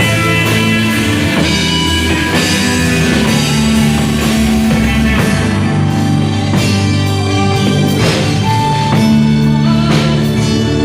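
Live band playing: drum kit, guitar and bass with sustained keyboard or guitar notes and some singing.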